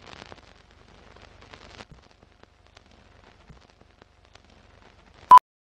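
Film countdown leader sound: faint crackling and scattered clicks like old projected film, then one short, loud beep near the end.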